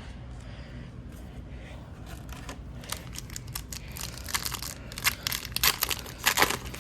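Hockey trading cards being handled and flipped through: a dense run of crinkling, crackly clicks starting about two and a half seconds in and stopping shortly before the end.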